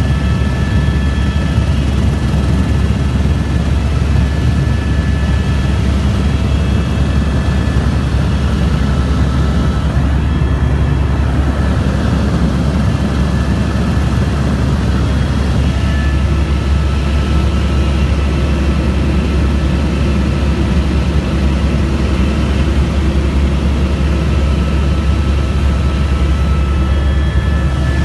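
Helicopter running steadily: a loud, constant low rotor and engine drone with a high turbine whine over it.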